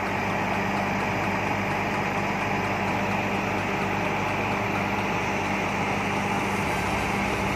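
Diesel engine of a Volvo crane truck running steadily at idle, a constant low hum, while it drives the hydraulics of the Palfinger knuckle-boom crane as the boom is raised.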